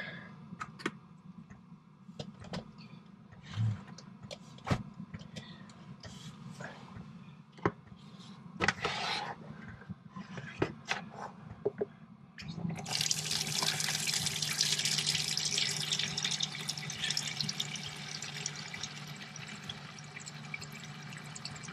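A few faint clicks and knocks, then about halfway through cold water from a sink tap starts running into a plastic collapsible washing-up bowl, a steady rush with a low hum under it.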